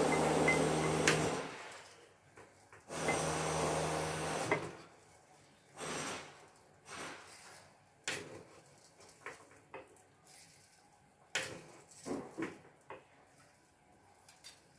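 Dry rice being scooped out of a container with a plastic scoop: scattered clicks, knocks and rustles of the scoop, grains and container. These come after a steady whirring noise that cuts off about a second and a half in and comes back briefly between about three and four and a half seconds.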